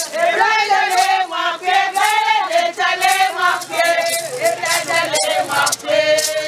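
A group of women singing a praise song in chorus, with hand-held gourd rattles shaken in time.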